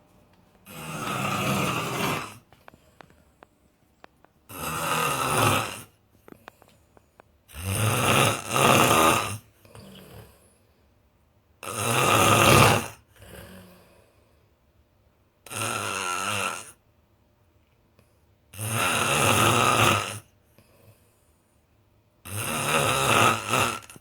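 A person snoring: seven long, rough snores, one about every three and a half seconds, some followed by a quieter breath.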